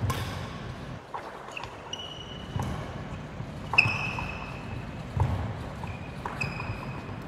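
Badminton rackets hitting shuttlecocks in a feeding drill, a sharp hit every second or so, with court shoes squeaking on the wooden floor and footsteps between the shots.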